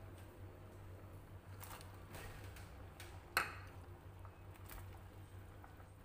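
Light clinks and taps of dishes against a stone-coated cooking pot as chopped vegetables and tempeh are tipped in, with one sharp clink a little past halfway. A low steady hum runs underneath.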